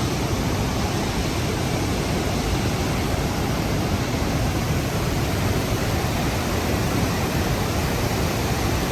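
Steady, loud rush of the Rhine Falls: a large mass of water pouring over the falls in a constant, even noise with a heavy low rumble.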